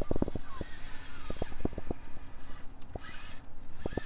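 SCX24-scale RC rock crawler with a prototype LGRP brushless motor climbing onto rocks: a faint motor whine that rises and falls in pitch, with scattered clicks and knocks as the tyres and chassis go over the stones.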